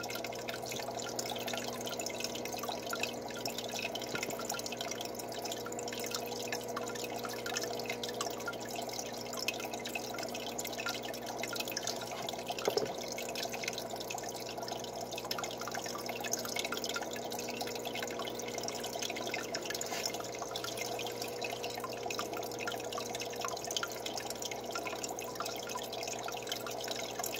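Aquarium water steadily trickling and dripping, over a low steady hum.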